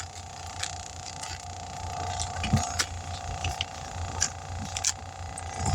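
Scattered light metallic clinks and ticks over a steady hum.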